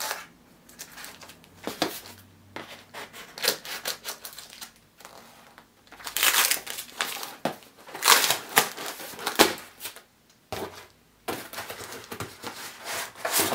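A cardboard shipping box being opened by hand, with irregular tearing, rustling and crinkling of the packaging. The loudest clusters come about six to nine seconds in and again near the end.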